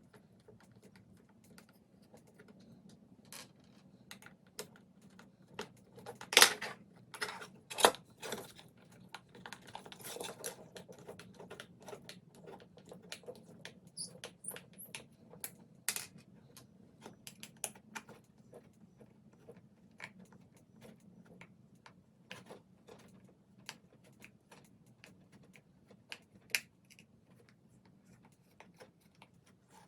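Irregular small clicks, taps and clatter of hand tools and small metal and plastic parts as a beetleweight combat robot is taken apart by hand, with two louder knocks about six and eight seconds in.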